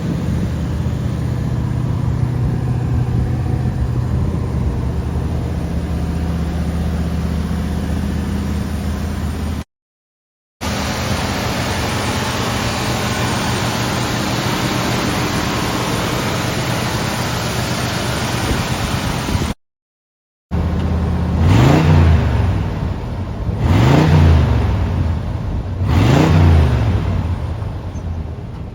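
A 1971 Buick Riviera's 455 V8 idles steadily, then runs at a steady, hissier pitch after a short break. After a second break the throttle is blipped three times, and each rev rises and falls in pitch.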